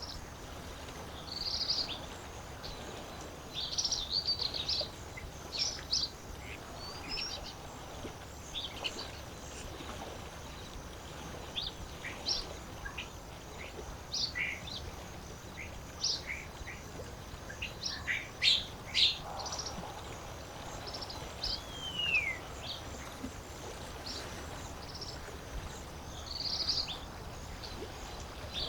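Several birds calling and singing with short, high chirps and trills scattered throughout, including one downward-sliding whistle about 22 seconds in, over a steady low hiss of lakeside ambience.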